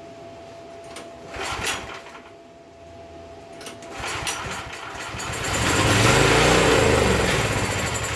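Small gas engine on a pressure washer being pull-started: a couple of recoil pulls, then the engine catches and runs for a few seconds, its speed swelling and then sagging near the end.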